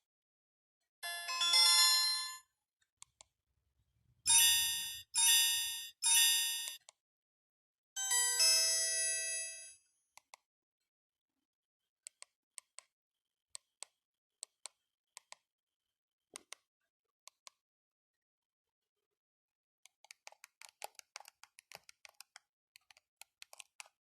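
Alcatel One Touch 1013D mobile phone playing short electronic ringtone/alert tones through its small speaker: a brief chime about a second in, three quick identical beeps about a second apart from about four seconds, and a longer tone pattern around eight seconds. After that only faint scattered clicks, growing denser near the end.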